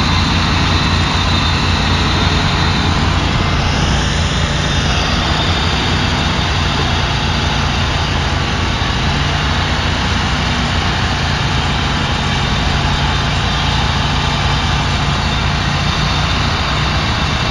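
A loud engine running steadily with a low drone, and a brief whine that rises and falls about four seconds in.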